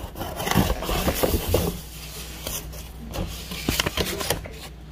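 A hand rummaging inside a cardboard laptop box, with cardboard and paper scraping and rustling as the paper insert is drawn out. It is loudest in the first couple of seconds, then comes as a few lighter rustles and taps.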